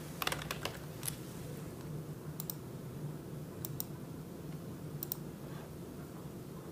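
Typing on a computer keyboard: a quick run of keystrokes in the first second, then clicks in close pairs about every second and a bit, over a low steady room hum.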